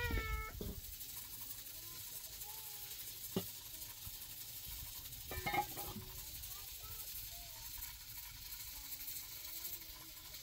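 Faint steady hiss of a wood cooking fire under a steaming pot, with a child's voice briefly at the very start, one sharp tap about three seconds in, and a short clink of glass tea cups about halfway through.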